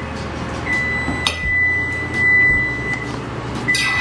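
A metal fork stirring a thick, creamy salad in a stainless steel mixing bowl, with a couple of light clinks of the fork against the bowl, about a second in and near the end. Under it runs a steady hum with a thin, high, constant whine.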